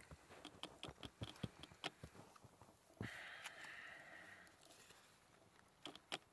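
Folded paper crinkling and rustling in the hands as it is unfolded: a run of small crackles, then about three seconds in a sudden louder rustle that fades over a second or so, and two sharp crackles near the end.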